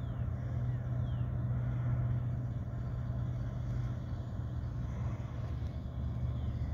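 Steady low engine hum and rumble, with three faint short high whistles falling in pitch: one near the start, one about a second in and one near the end.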